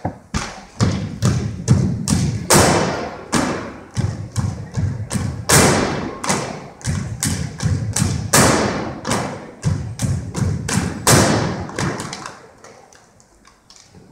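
Unarmed drill team's stomps and hand claps struck in unison, a quick rhythmic run of sharp hits echoing in a gymnasium. They stop shortly before the end.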